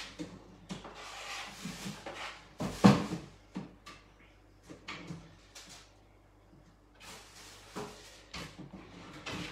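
Kitchen handling noise: scattered knocks and clicks like cupboard or drawer doors being opened and shut, the loudest knock about three seconds in and a quieter stretch around six seconds.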